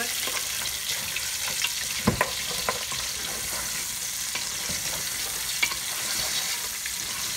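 Stock-boiled beef pieces and browned onions sizzling as they fry in ghee in a metal pot, with a steady hiss, stirred with a wooden spoon that clicks and scrapes against the pot; one louder knock about two seconds in.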